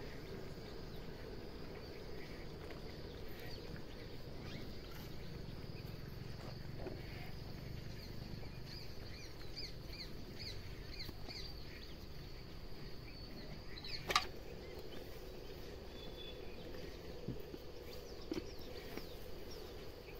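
Outdoor ambience: birds chirping in short calls over a steady high insect buzz. One short, sharp knock comes about fourteen seconds in.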